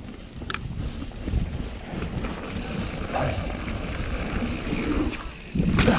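Wind rushing over an action camera's microphone as a mountain bike rolls fast down a dirt trail, with tyre and trail rumble and a click about half a second in. A louder thump comes near the end.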